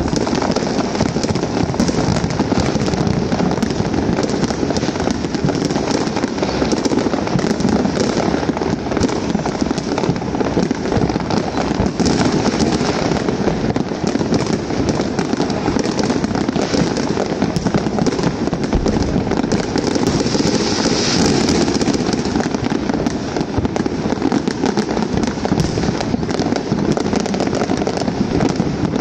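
Unbroken barrage of fireworks and firecrackers going off all across a neighbourhood, countless bangs and crackles blending into one steady, dense crackle with no let-up.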